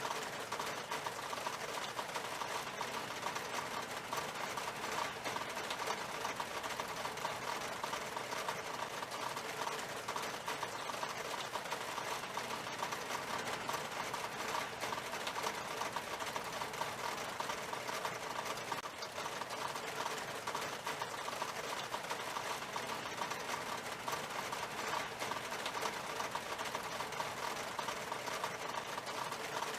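Steady rain falling on window glass: a dense, even run of small drop taps that holds without let-up.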